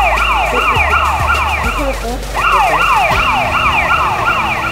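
A siren-like alarm of rapid falling whoops, about four a second, in two runs with a short break about two seconds in.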